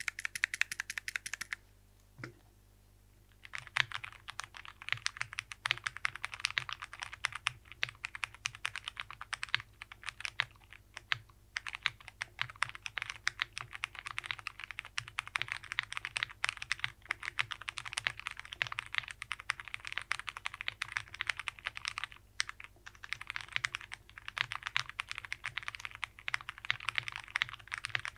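Fast typing on a plateless 65% mechanical keyboard with Cherry MX Brown switches, a quick run of key clacks at a steady rapid pace. It stops briefly after about a second and a half, with one soft knock, and resumes about three and a half seconds in.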